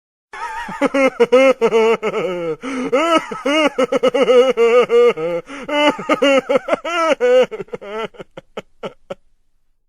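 A long, high-pitched laugh made of rapid pulses, which slow down and fade out near the end.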